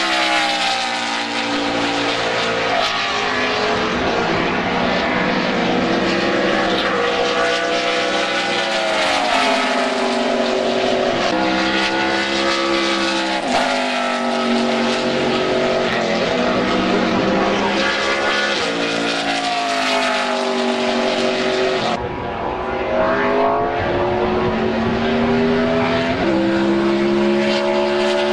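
NASCAR stock cars' V8 engines at full racing speed passing one after another, several on track at once, each one's engine note swelling and bending in pitch as it goes by.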